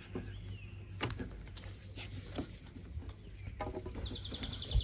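Faint clicks and rustling as the awning's fabric cover and straps are handled at the roof rack, with a bird chirping a quick repeated series near the end.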